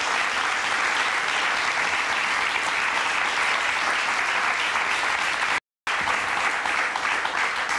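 Studio audience applauding steadily, broken by a split-second gap of silence about two-thirds of the way through.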